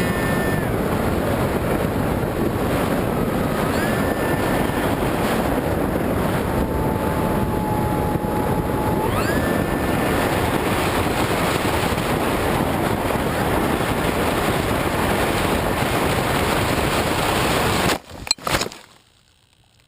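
Electric motor and propeller of a foam-board flying wing whining under throttle, with heavy wind rush over the onboard camera; the pitch drops for a few seconds and climbs back as the throttle is moved. About 18 seconds in the sound breaks off in a few sharp knocks as the plane crashes, and near silence follows.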